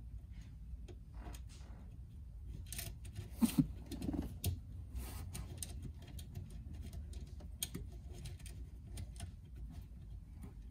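Scattered faint clicks and small metallic taps of a nut, lock washer and washer being fitted by hand onto a golf-cart solenoid's terminal stud.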